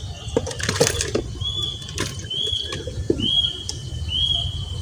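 A bird calling a short, high, repeated note about once a second, starting about a second and a half in. A rustle and several sharp knocks come in the first second and a half, with single knocks about two and three seconds in.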